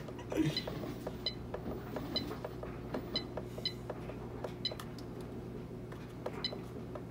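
AeroGarden Ultra control panel giving a short, high beep each time its up-arrow key is pressed, about once a second and not quite evenly, as the clock is stepped forward a minute at a time. A faint steady low hum runs underneath.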